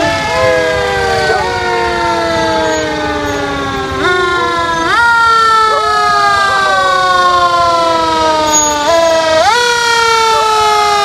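Fire truck sirens winding slowly down in pitch and jumping sharply back up every few seconds, with a black Labrador retriever howling along in long rising-and-falling wails.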